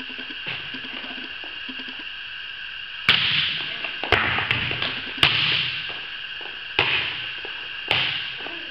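A volleyball being struck in passing play: about five sharp smacks, each ringing on in the echo of a large metal-roofed gym, over a steady high hum.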